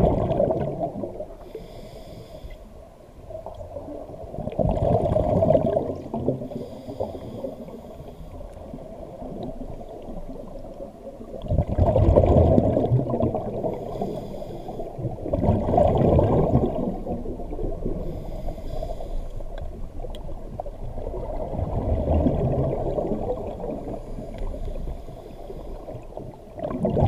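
Scuba diver breathing through a regulator underwater: a burst of bubbling exhaust every four to six seconds, with a fainter hiss of inhalation between them, muffled as heard through an underwater camera housing.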